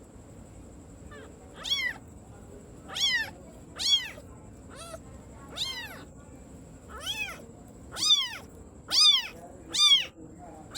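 Kitten mewing repeatedly, about nine short high-pitched mews roughly a second apart, each rising and then falling in pitch.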